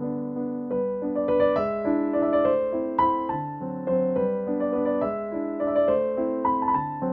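Background piano music, a melody of single struck notes over held lower notes.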